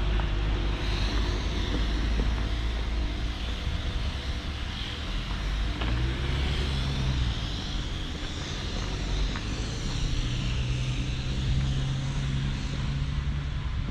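A motor vehicle engine running close by: a steady low rumble with a hum that grows stronger twice, over general outdoor noise.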